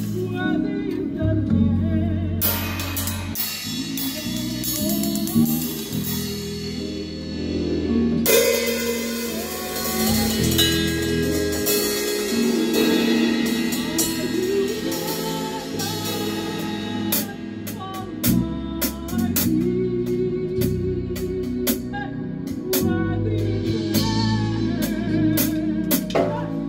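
A rock band playing a song at rehearsal: drum kit with cymbals, bass guitar and guitar, with singing over it.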